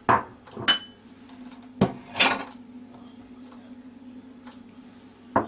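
Plastic containers knocking and clinking against a glass mixing bowl as flour and other dry ingredients are tipped in: a handful of sharp knocks, one with a short glassy ring about a second in.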